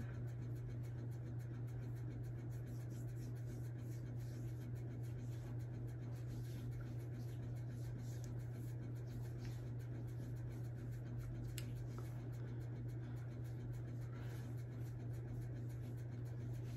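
Faint rubbing and light scratching of face primer being worked into the skin, over a steady low hum.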